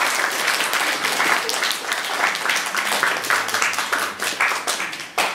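Audience applauding, thinning out and growing quieter toward the end.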